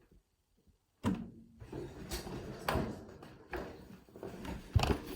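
Hands handling and rustling things, with several sharp clicks and knocks, after about a second of near silence.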